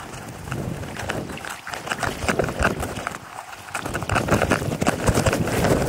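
Feet in rubber waders wading through shallow creek water: a steady run of splashes that grows louder toward the end.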